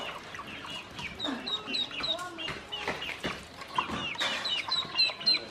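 A group of yellow domestic ducklings peeping continually, many short, falling high chirps overlapping one another, with a few small splashes of water as they paddle in a shallow basin.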